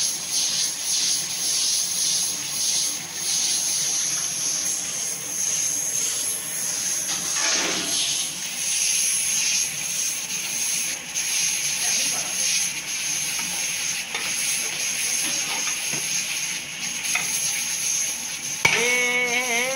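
Pressure cooker venting: steam hissing steadily out of the lid's vent pipe, fluttering as the lifted weight spins above it. About a second before the end, a louder wavering pitched tone sets in.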